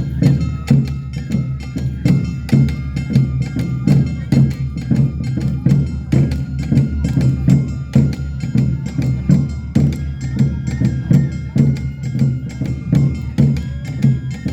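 Live Awa odori accompaniment: drums beating a fast, steady rhythm, with ringing, bell-like metal percussion and sustained high tones over them.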